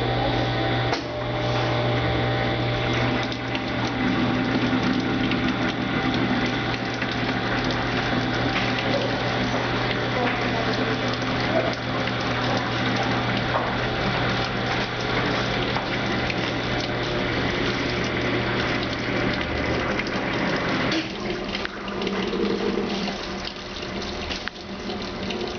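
Brastemp Ative washing machine's drain pump running with a steady hum while water rushes out at the end of the wash cycle. Near the end the hum stops and the sound changes.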